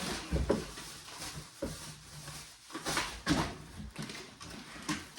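Rustling and knocking of grocery bags and packages being handled, with irregular clunks as items are moved.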